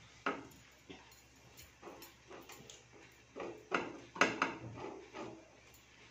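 Silicone spatula stirring strawberry jam in a pan, the sugar already dissolved into the fruit: a series of soft, irregular scrapes and squelches against the pan, loudest around four seconds in.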